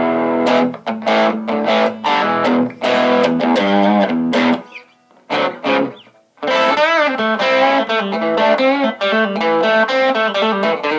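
Electric guitar (a Stratocaster) played through a blues driver overdrive pedal with the gain about two-thirds up, giving a lightly distorted tone. It plays lead lines of single notes with string bends, pausing briefly about halfway through.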